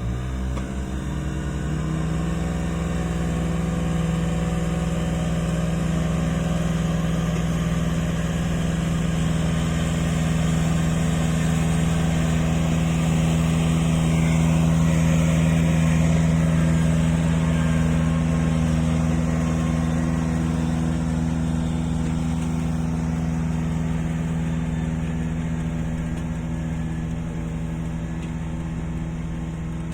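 Rice transplanter's small engine running steadily at an even pitch, with a slight rise in speed just after the start. It grows louder toward the middle and eases off a little near the end.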